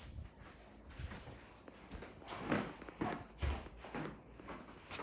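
A few soft, irregular knocks and thumps, most of them between about two and four and a half seconds in.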